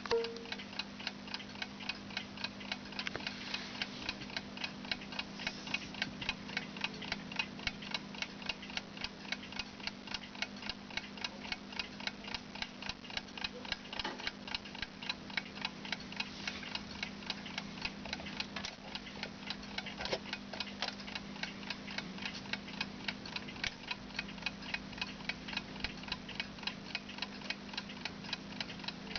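Brazilian mechanical alarm clock ticking, a quick, even tick that runs steadily without a break.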